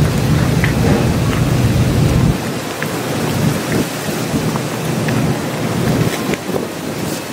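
Steady rain falling with strong wind buffeting the microphone as a deep rumble that drops away about two seconds in, leaving the rain hiss and scattered drip ticks.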